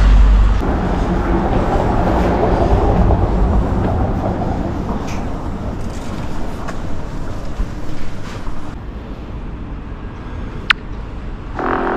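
City street traffic noise, loudest at the start and fading gradually as a vehicle goes by, with a single sharp click near the end.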